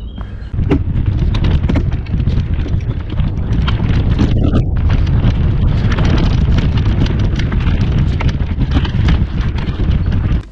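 Wind buffeting the microphone of a mountain bike's action camera while riding a leaf-covered dirt trail, with a steady low rumble and many small clicks and rattles from the tyres and bike over leaves and twigs. It starts about half a second in.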